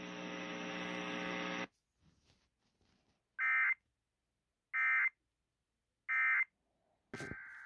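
A steady buzzing tone for under two seconds, then three short, identical bursts of Emergency Alert System digital data tones about 1.3 s apart: the End-of-Message code that closes a broadcast warning. A different recording's audio cuts in near the end.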